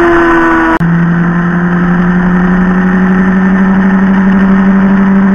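Motorcycle engine heard from on board at road speed, with a steady rush of wind and road noise. About a second in the sound cuts abruptly from an engine note slowly dropping in pitch to a steady, loud engine drone that slowly rises in pitch.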